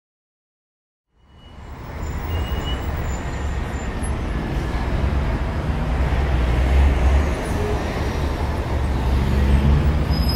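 Steady rushing wind noise with a deep low rumble, fading in about a second in after dead silence.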